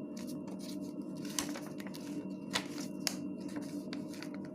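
Sheet of paper being handled and folded into a paper airplane, with three sharp, brief crinkles about a second and a half, two and a half and three seconds in, over a steady low hum.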